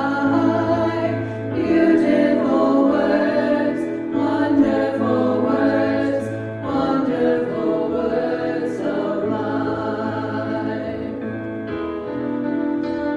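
A group of voices singing together in long, held notes.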